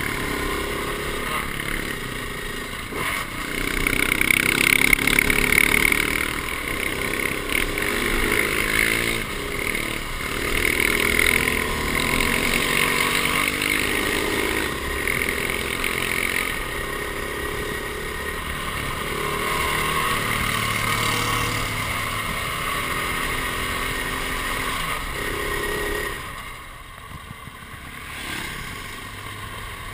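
Single-cylinder dual-sport motorcycle ridden along a dirt track, its engine pulling steadily and rising and falling in pitch with the throttle. The level drops a little near the end.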